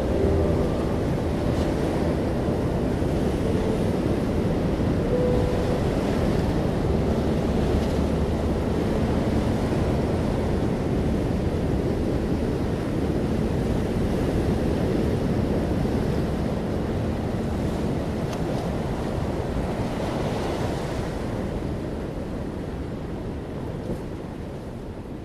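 Ocean surf washing against the shore with wind, a steady rushing with slow swells as waves come in, fading gradually near the end.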